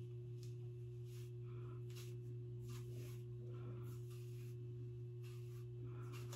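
Faint, soft swishes of a wide-tooth comb drawn through a synthetic-fibre wig, about ten short strokes with a pause in the middle, over a steady low hum.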